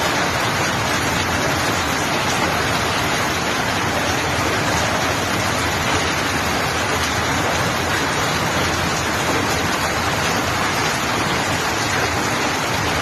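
Heavy rain pouring down in a dense, steady hiss with no let-up.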